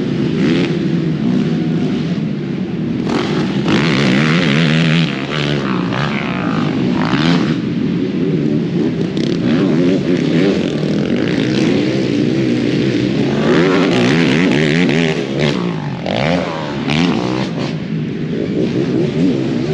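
Several racing ATV engines revving at once, their pitches rising and falling over one another as the quads accelerate and shift around a motocross track.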